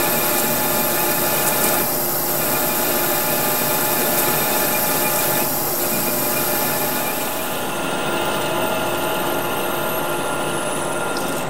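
Manual metal lathe running with a hand-ground high-speed-steel trepanning tool cutting a face groove: a steady machine whine of several fixed tones over cutting noise, with a high hiss that fades out about two-thirds of the way through.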